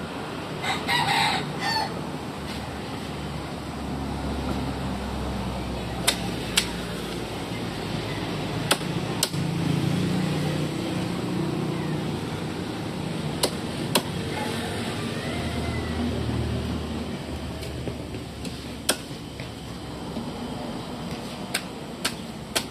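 Meat cleaver chopping through chicken onto a wooden chopping block: about ten sharp knocks, mostly in pairs about half a second apart. A rooster crows briefly about a second in.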